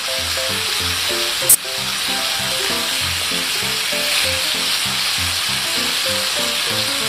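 A whole trevally sizzling steadily as it fries in melted butter on a nonstick grill pan, with one sharp click about a second and a half in. Soft background music of short plucked notes runs underneath.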